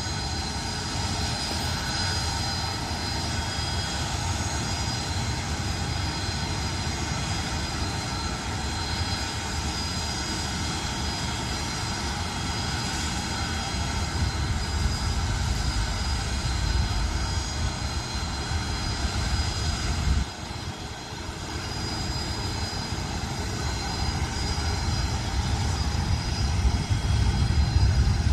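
KC-135R Stratotanker's four CFM56 (F108) turbofan jet engines running: a steady high whine over a low rumble, growing louder toward the end.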